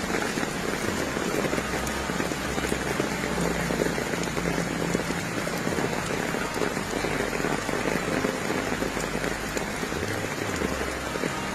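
Heavy rain pouring steadily, a dense hiss of drops with a low rumble underneath.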